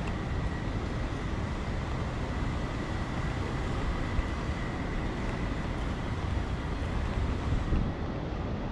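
Steady rumble and rush of a train in motion, with a faint steady whine.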